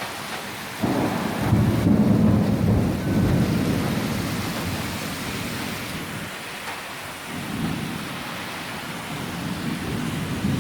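Thunder rumbling over steady rain: a loud rumble breaks in suddenly about a second in and rolls away over several seconds, then another low rumble builds near the end.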